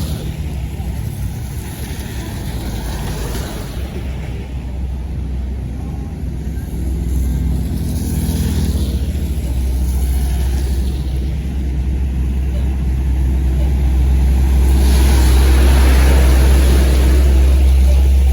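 Deep engine rumble of a tour bus with passing-traffic noise, growing steadily louder through the second half as the vehicle comes closer or pulls away under power.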